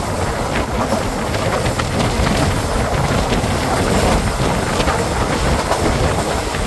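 A passenger train running along the line, heard from an open coach window: a steady rumble of wheels on the rails mixed with wind rushing past, with a few faint clicks.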